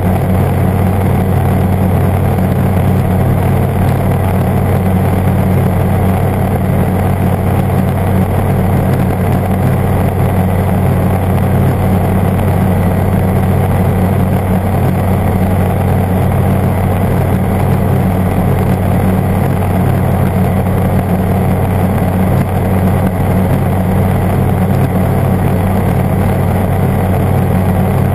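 Airbike ultralight aircraft's engine and propeller droning steadily at cruise power in flight, a constant low hum with rushing air over it and no change in pitch.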